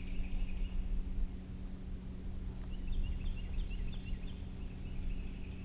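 Bass boat's electric trolling motor humming steadily, with songbirds singing over it: a trill at the start and again near the end, and a run of quick falling notes in the middle.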